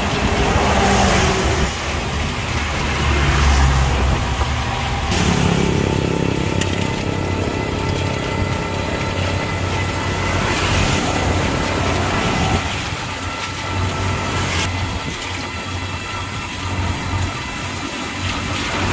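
Car driving on a wet road: a steady low engine hum under an even hiss of tyre and road noise.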